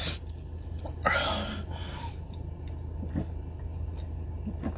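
A man drinking soda from a glass bottle: a noisy breath out lasting about a second, starting about a second in, then small mouth and swallowing clicks, over a steady low hum.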